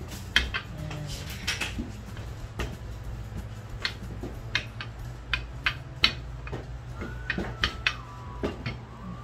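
Irregular sharp clicks and knocks of kitchen utensils on a work surface, over a steady low hum. A thin high tone comes in about seven seconds in.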